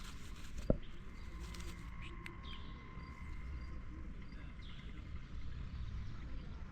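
A cat purring close to the microphone as a steady low rumble, with a single sharp click about a second in and a few faint bird chirps.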